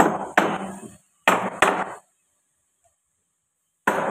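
Hammer blows on a solid wooden panel door, each a sharp knock that rings briefly. Two pairs in quick succession, then a fifth near the end.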